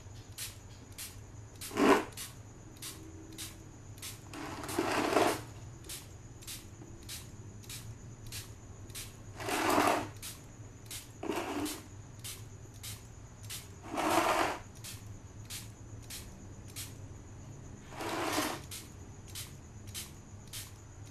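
Handheld air spray gun hissing in six short bursts, a few seconds apart, as the trigger is pulled to mist spray-on chrome solution. A faint steady ticking, about two a second, and a low hum run underneath.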